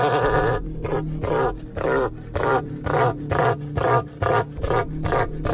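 A bird calling: one long harsh call ends about half a second in, then comes a quick, regular run of short pitched calls, about three a second.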